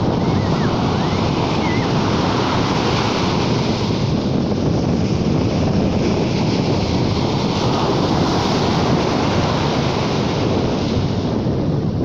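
Sea waves washing on the shore in a steady, swelling surf, with wind rumbling on the microphone.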